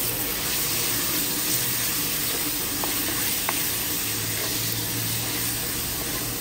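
Sliced pork sizzling in hot oil as it is stir-fried in a pot, a steady frying hiss with the stirring of a wooden spoon and a couple of light clicks about three seconds in.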